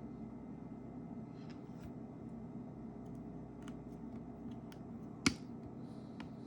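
Scattered small clicks and ticks of tools and small parts being handled during phone reassembly, with one sharper click about five seconds in, over a steady low hum.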